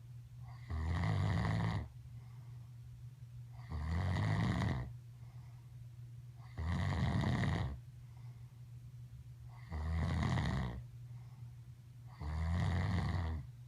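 A man snoring heavily in his sleep: five loud, rasping snores of about a second each, coming about every three seconds.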